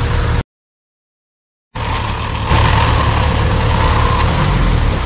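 Off-road 4x4 engine running with a steady low rumble, cut by about a second of dead silence near the start. It gets louder about halfway through.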